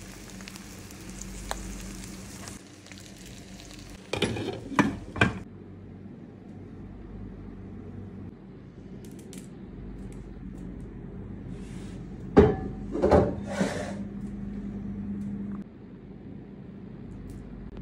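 Cooking sounds: a light sizzling hiss in the first couple of seconds, then clattering knocks of a metal pot and utensils, in a quick cluster about four seconds in and again about twelve seconds in.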